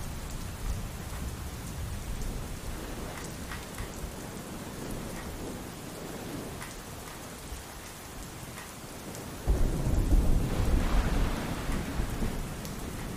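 Steady pouring rain with scattered drips. A loud roll of thunder breaks in suddenly about three-quarters of the way through and fades over the next few seconds.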